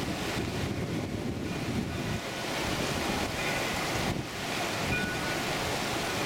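Rushing water of a fast mountain creek running high, blended with wind buffeting the microphone in a steady, heavy rumble.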